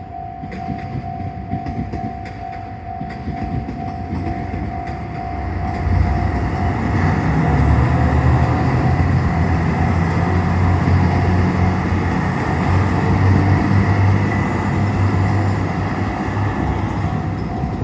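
JR Shikoku 2700 series diesel limited express train passing over a level crossing. Its engines and wheels on the rails make a heavy rumble that swells about six seconds in and eases near the end. Throughout, the crossing's warning bell sounds a repeating pulsed tone.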